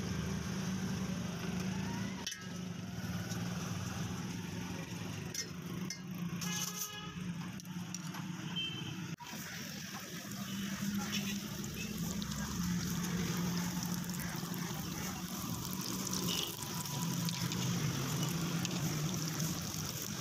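Roadside street traffic: a steady hum of passing vehicles, with a vehicle horn sounding briefly about seven seconds in.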